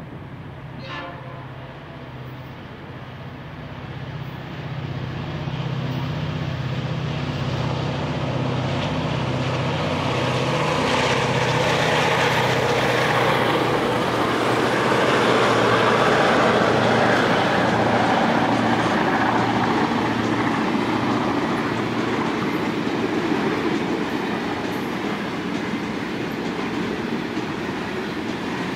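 Diesel freight locomotive running with a steady low engine note as it approaches and passes. A long rake of hopper wagons then rolls by with rising wheel and rail noise, loudest about halfway through and easing toward the end.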